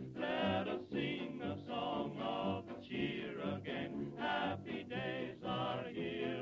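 Background music of voices singing, choir-like, in short phrases.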